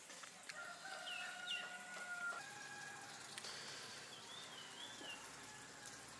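A rooster crowing once, faintly, in a long drawn-out call lasting about two seconds, with small birds chirping higher up.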